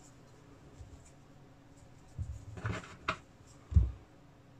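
Hands handling small parts of a disassembled folding knife on a work surface. Light rubbing and scraping come about two to three seconds in, then a single dull knock just before four seconds.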